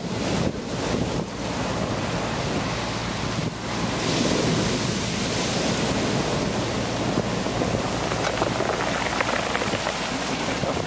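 Heavy storm surf breaking on the shore and foaming water washing across the ground, with strong wind blowing over the microphone. The rush grows louder about four seconds in and stays loud.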